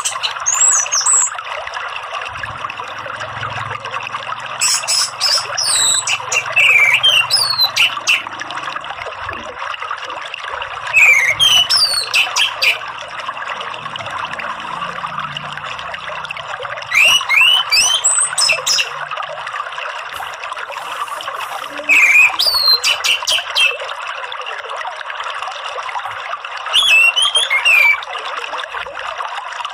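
Orange-headed thrush singing in short bursts of quick, chattering whistled phrases, six of them about five seconds apart, over a steady sound of running water.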